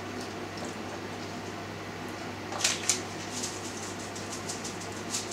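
Cubes of feta being pressed down into a glass jar: faint clicks and scrapes, with two sharper clicks about two and a half seconds in, over a steady low hum.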